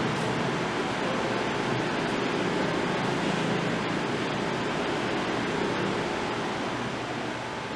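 Steady rushing hiss with no clear pitch, like fan or recording noise, with a short click right at the start.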